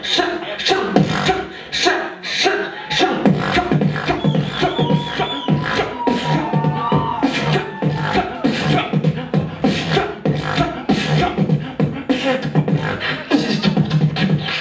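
Solo beatboxing through a handheld microphone: a fast, even rhythm of sharp mouth-made snares and hi-hats over a steady low hummed bass. From about four seconds in, a held high tone wavers above the beat for a few seconds.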